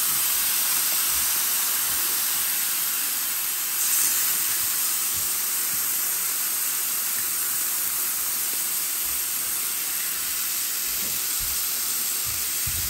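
Marinated chicken thigh pieces sizzling on the oiled, hot plate of an electric indoor grill set to 300: a steady hiss that swells briefly about four seconds in and then slowly eases.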